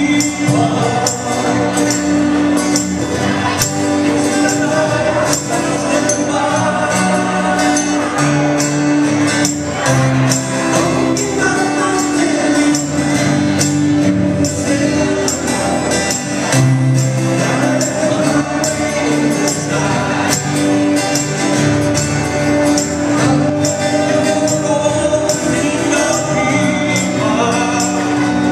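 Live acoustic band: several acoustic guitars strummed together with a cajón keeping a steady beat, and several men singing in harmony over them.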